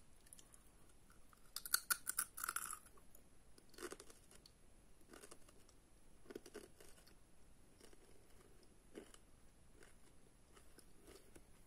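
A Pringles crisp bitten and chewed close to the microphone: a cluster of crisp crunches about two seconds in, then fainter, scattered chewing crunches every second or two.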